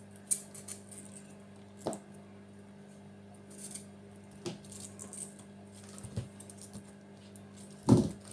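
A few sharp clicks and knocks of a kitchen utensil and food against a dish during hand food prep, the loudest near the end, with some faint rustling over a steady low hum.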